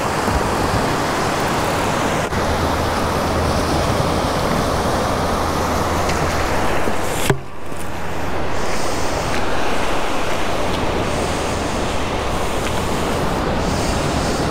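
Gulf surf washing up on the beach, with wind on the microphone: a steady rushing noise that breaks off for a moment about seven seconds in.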